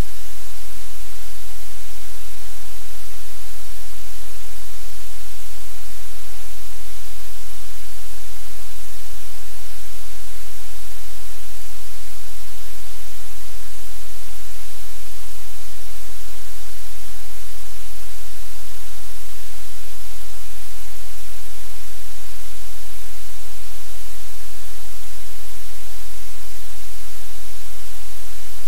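Loud, steady static hiss over a low hum, unchanging, with no other sounds standing out.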